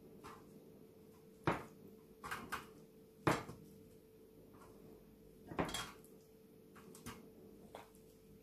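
Marinated chicken wings set down on a wire oven rack over a metal baking tray: several sharp knocks and light rattles of the rack against the tray, the loudest about a second and a half and three seconds in.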